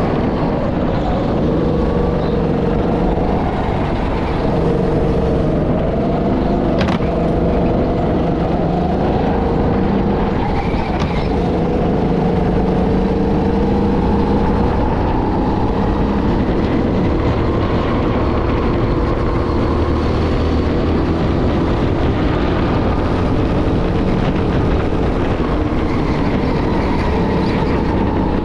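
Go-kart engine running hard through a lap, its pitch rising and falling again and again as the throttle opens and closes through the corners. A sharp click comes about seven seconds in.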